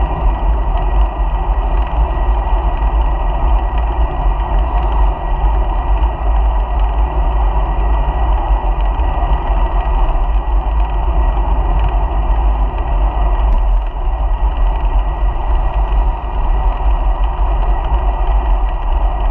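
Steady wind buffeting and road rumble on the microphone of a GoPro mounted on a moving bicycle, heaviest in the deep lows.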